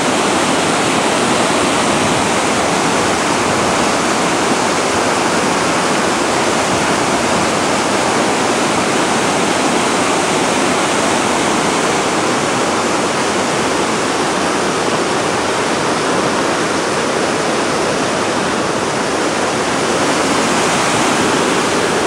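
Whitewater river rapids rushing over rocks: a loud, steady rush of water.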